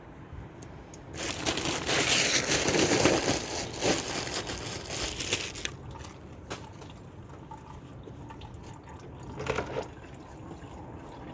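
Used engine oil draining from the sump into a drain pan, splashing loudly from about a second in to about six seconds, then trickling more quietly with a few light clicks.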